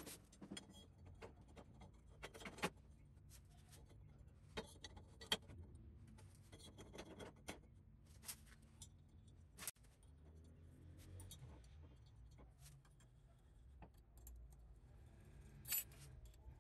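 Faint, scattered light clicks and clinks of small steel parts and hand tools being handled and set down on a steel workbench, irregularly spaced, over near silence.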